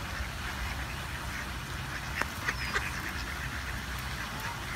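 Ducks quacking a few short times, bunched about two to three seconds in, over a steady low rumble.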